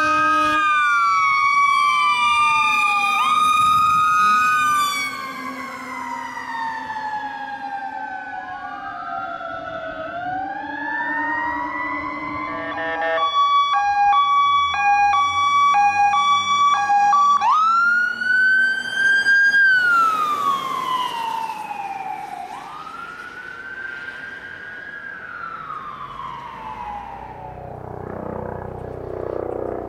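Emergency vehicle sirens responding: first a fire engine's sirens, several wails overlapping loudly for about five seconds, one then winding slowly down. Then an ambulance siren sounds an alternating two-tone hi-lo for a few seconds before switching back to a rising and falling wail.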